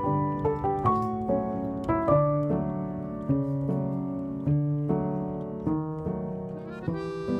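Background music: a gentle piano melody, one note after another with chords beneath.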